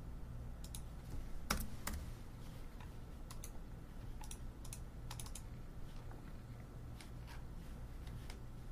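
Computer keyboard and mouse clicks, a dozen or so short, irregularly spaced clicks, as a filename is typed and the file is saved. A faint, low, steady hum lies underneath.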